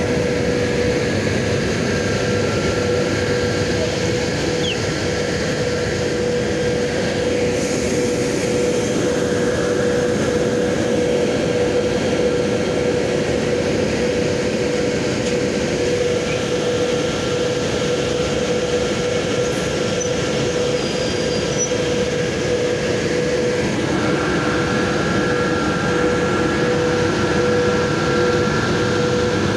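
VL80 electric locomotive standing with its auxiliary machinery running: a steady, loud hum with a held mid-pitched tone. Higher whines come in and change about 8 and 24 seconds in.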